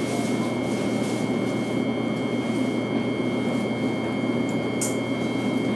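Inside a JR East E233-0 series electric train car standing at the platform just before departure: a steady hum from the onboard equipment, with two thin steady high tones. There is one short hiss about five seconds in.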